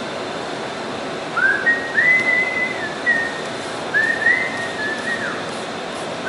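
A person whistling a tune in two short phrases, a few held and gliding notes each, over the steady background noise of a large shop.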